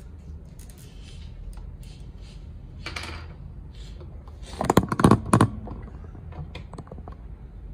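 Hard plastic action figure and its parts being handled and posed: small clicks and rustles, with a short run of louder clacks about five seconds in.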